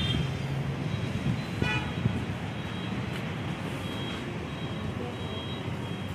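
Steady low traffic rumble, with a short vehicle horn toot about a second and a half in.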